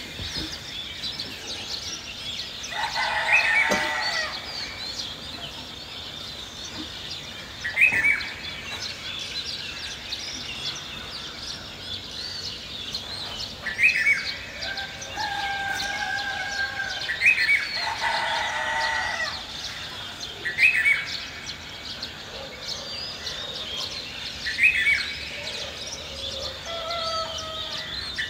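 Birds twittering continuously, with louder short upward-sweeping calls every few seconds and several longer held calls lasting a second or two.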